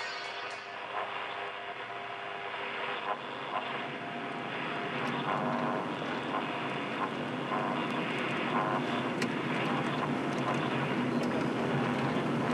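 Car radio hissing with static as it is tuned and finds no station, over the steady running of the car on the road, with a few short clicks along the way.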